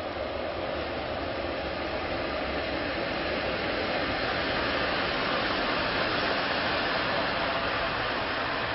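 Two-car Northern Rail diesel multiple unit pulling into the platform: a steady rush of engine and wheel noise that grows gradually louder as the carriages pass.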